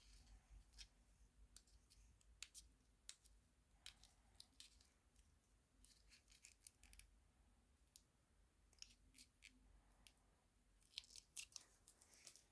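Faint, irregular sharp clicks and crackles, closely clustered near the end.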